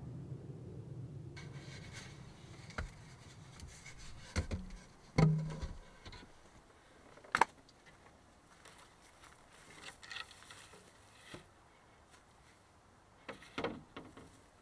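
A low steady hum that cuts off suddenly about a second and a half in, followed by scattered knocks, clicks and rubbing of objects being handled. The loudest is a sharp knock about five seconds in, and a cluster of knocks comes near the end.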